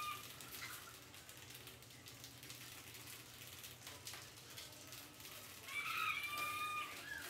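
A bird calling once about six seconds in: one long call at a steady pitch that drops at the end, over faint scattered ticks.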